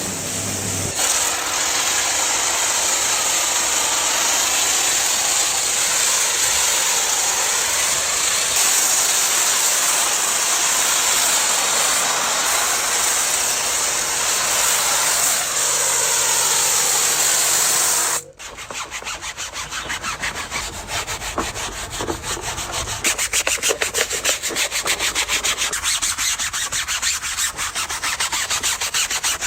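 Pressure washer spray hissing steadily against the car. It stops abruptly about two-thirds of the way through, giving way to rapid back-and-forth scrubbing strokes on the surface.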